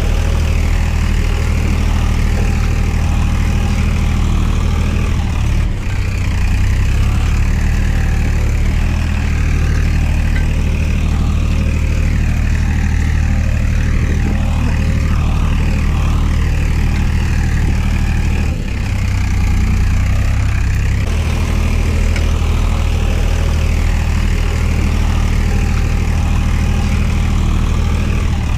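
Tractor engine running steadily, dubbed over the toy footage as a sound effect, since the toy tractors are pulled by a string. Its note shifts briefly about six seconds in, and twice more around two-thirds of the way through.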